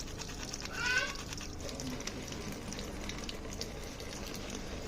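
Water running steadily, with scattered light clicks and a brief high-pitched squeak about a second in.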